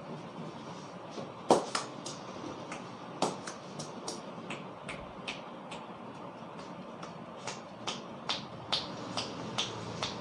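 Sharp, irregular snaps and slaps of a barber's hands during a head massage, over a steady background hiss. The loudest crack comes about a second and a half in and another at about three seconds, followed near the end by a quicker run of lighter snaps.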